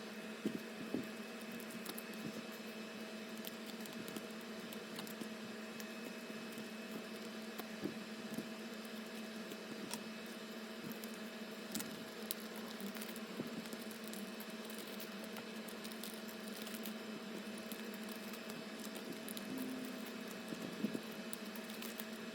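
Light handling of packaging and stickers: scattered soft taps, clicks and crinkles over a steady background hum.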